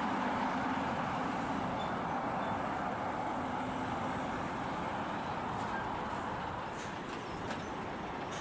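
A lorry's engine running close by, with a steady, even rush of engine and road noise.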